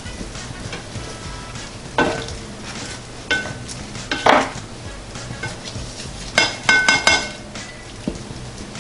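Spatula scraping and clinking against a baking pan while working a sticky cinnamon roll loose: single scrapes about two, three and four seconds in, then a quick run of ringing clinks a little before the seven-second mark.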